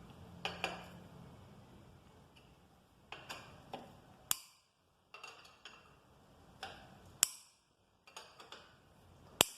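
Hand wrench clicking and clinking on the motorcycle engine's side-cover bolts as they are loosened in crisscross order: scattered sharp metallic clicks, a dozen or so, quiet between them.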